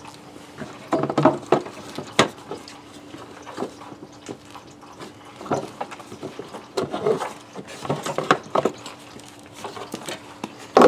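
Scattered knocks and clicks of hands and tools handling parts in a car's engine bay, over a faint steady hum.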